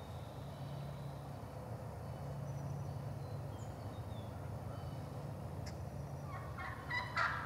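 Wild turkey gobbler gobbling about six seconds in, a loud, rapidly pulsed call. Before it there is only a steady low background rumble with a few faint high bird chirps.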